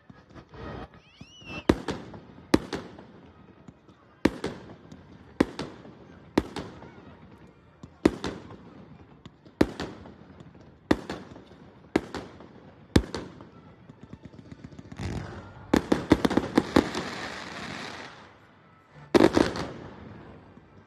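Aerial fireworks bursting one after another, a sharp bang about every second, with a brief whistle near the start and a dense run of crackling bursts about three quarters through.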